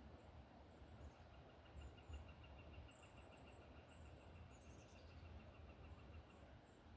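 Near silence: faint outdoor background with a soft low rumble. A faint, rapidly pulsed high trill starts about a second in and runs for about five seconds, and a few scattered high chirps sound over it.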